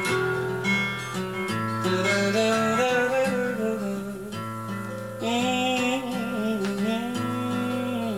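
Acoustic guitar playing a slow picked passage, single notes ringing over held bass notes that change every few seconds.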